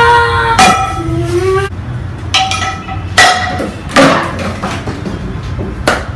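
Kitchenware clanging: a metal frying pan and other pots and lids struck together about six times, each hit ringing briefly.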